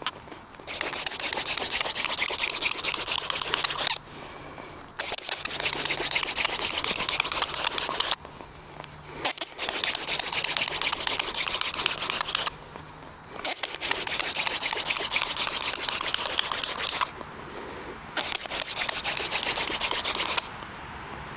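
Cattail hand drill spun hard between the palms into a notched poplar baseboard: five bouts of fast rubbing and grinding, each about three seconds, with short breaks between them. The friction is grinding out hot dust to build toward an ember.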